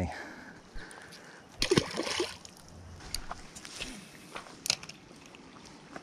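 Creek water splashing and sloshing about two seconds in, followed by scattered small clicks and taps.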